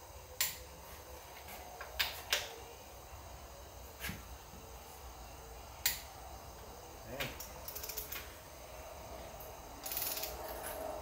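Torque wrench tightening the main bearing cap bolts of a Jeep 258 (4.2 L) inline-six block in steps: sharp single clicks every second or two, with a short run of quick ratchet ticks about halfway through.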